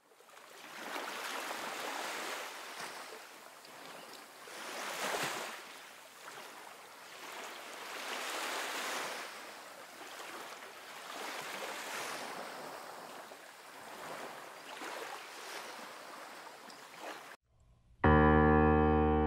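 Sea waves washing in and out, swelling and fading about every three to four seconds, cutting off suddenly near the end. Piano music starts just after.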